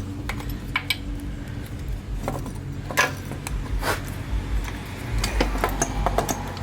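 Irregular metallic clicks and clinks of hand tools and parts being handled while working on a motorcycle's carburetors, over a steady low hum.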